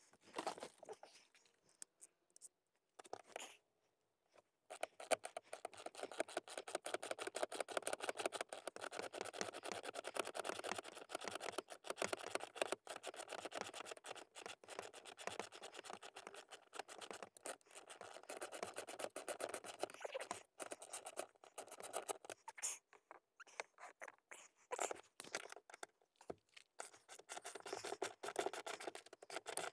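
Socket ratchet clicking fast and continuously as it loosens a seat-mounting bolt, with a few short pauses. A few separate clicks and knocks come first, then the steady clicking begins about five seconds in.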